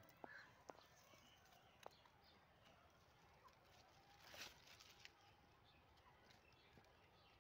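Near silence: faint outdoor ambience with a few soft clicks in the first two seconds and a brief rustle of leaves about four seconds in, as the gourd vine is handled.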